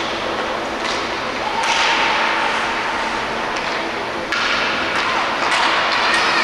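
Ice hockey play: several sharp clacks of sticks and puck, with stretches of skates scraping across the ice.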